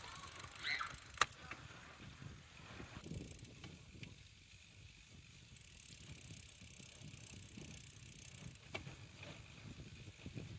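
Bicycle being ridden along a tarmac road: a steady low rumble of tyres on the road, with a brief squeak and then a sharp click about a second in.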